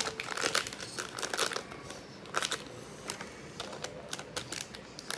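Toy packaging being handled: irregular crinkles and clicks, with small clusters of crackling throughout.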